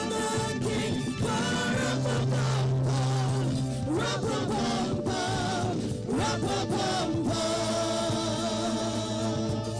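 Live worship music: a woman's lead voice singing a worship song with backing singers, over instrumental accompaniment with long held low notes.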